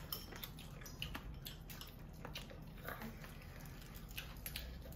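People biting and chewing sauced fried chicken on the bone, heard as faint scattered short wet clicks.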